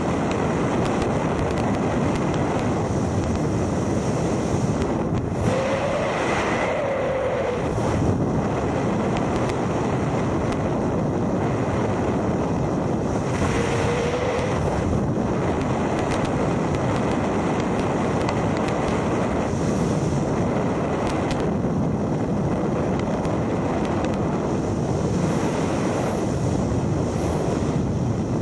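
Steady loud rush of wind over the camera microphone during wingsuit flight in freefall, with a couple of brief faint whistling tones about six and fourteen seconds in.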